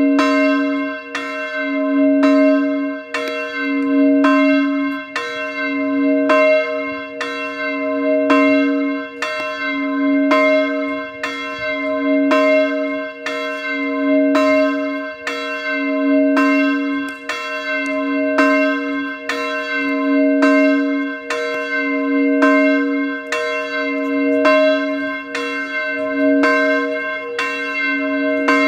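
Medium church bell tuned to c2, swinging and tolling the noon ringing at about one stroke a second. Each stroke rings on, with a deep hum swelling on every other stroke.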